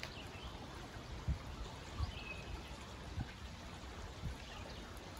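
Shallow creek running over rocks, a steady burbling water sound, with a few soft low bumps.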